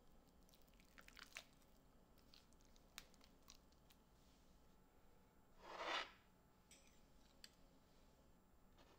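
Faint kitchen handling sounds during food preparation: a few light clicks and taps, and one soft swish about six seconds in, over near silence.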